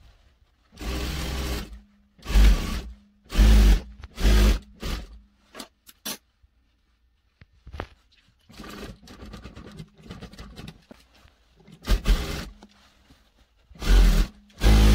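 SunStar industrial sewing machine stitching through folded fabric in short stop-start runs of a second or less, with a steady motor hum behind them; a quieter stretch in the middle, then more runs near the end.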